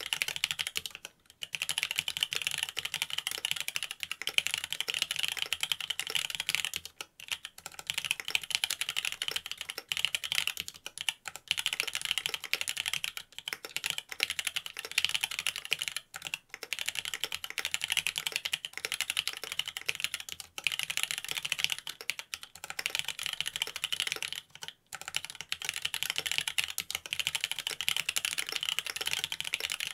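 Continuous typing on a Mont Cervin mechanical keyboard fitted with Cherry Wyse Black linear switches on a carbon-fibre plate and Key Kobo keycaps: a dense run of keystroke clacks, pausing briefly a few times.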